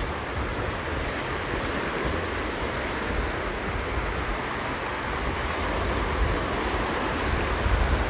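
Small waves washing onto the shore, with wind gusting against the microphone.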